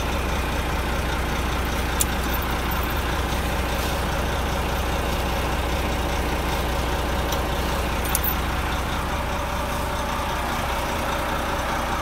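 Renault T460 truck's diesel engine idling steadily close by, with a couple of light clicks about two seconds in and again about eight seconds in.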